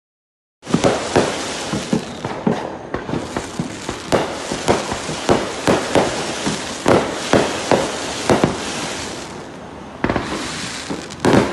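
Fireworks going off: a dense run of sharp bangs, about two a second, over a continuous crackle, starting abruptly about half a second in. The bangs thin out about nine seconds in, then two more loud bursts come near the end.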